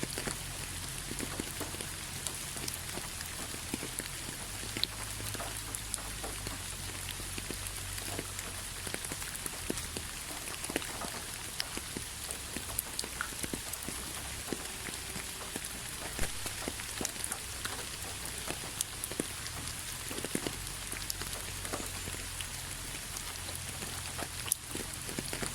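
Steady rain falling on a surface, a continuous hiss with many individual drops ticking and pattering irregularly through it.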